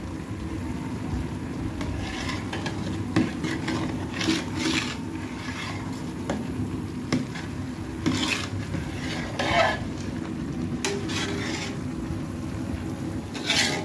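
A metal ladle stirring chana dal and chicken pieces in water in a large metal pot, with short scrapes and clinks against the pot every second or two over a steady low rumble.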